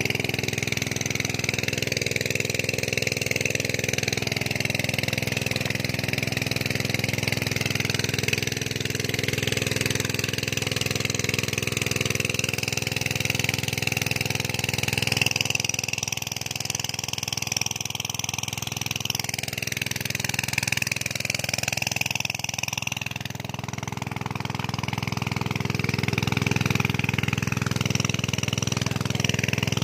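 Engine-driven water pump running steadily at a constant speed, an even mechanical drone.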